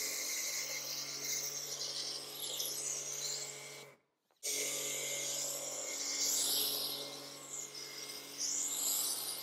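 Electric pressure washer running, a steady motor hum under the hiss of its spray, as a spray-on liquid wax is put onto a car's wet paintwork. The sound stops briefly about four seconds in, then carries on.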